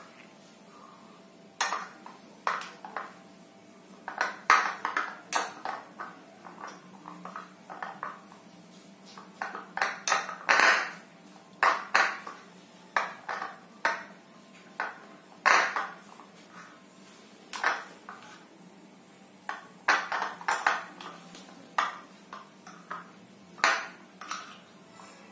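Metal spoon clinking and scraping against a plate as a stiff noodle-and-egg bait dough is stirred and mashed, in irregular strokes one or two a second with a few longer scrapes.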